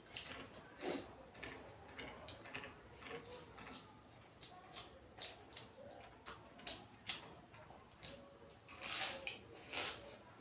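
A person eating by hand: wet chewing and lip-smacking, many short irregular smacks several times a second, the two loudest near the end.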